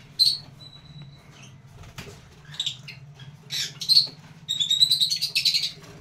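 A flock of aviary lovebirds chirping and twittering in short high bursts, busiest near the end, over a faint steady low hum.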